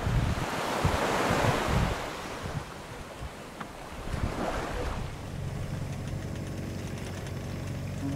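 Water rushing and washing along a sailboat's hull under way, with wind on the microphone, swelling twice. About five seconds in this gives way to the steady low hum of a boat engine motoring.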